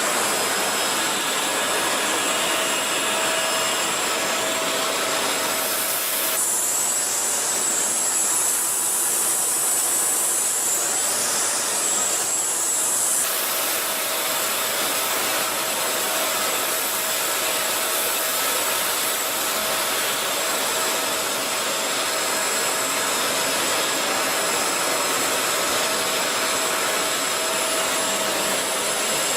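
Shark NV501 Rotator upright vacuum cleaner running steadily, a loud motor hiss with a thin whine. From about six to thirteen seconds in, its tone changes, thinner in the middle and brighter up high, then settles back.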